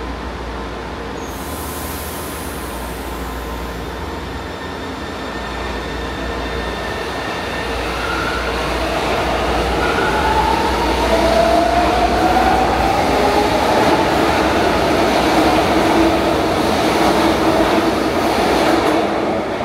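São Paulo Metro Line 2 subway train running past, growing louder over several seconds and then holding steady. About halfway through, high whining tones glide upward.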